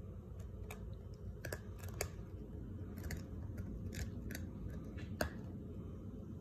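Puppy crunching a Milk-Bone dog biscuit: irregular sharp crunches and clicks, with one louder crack about five seconds in.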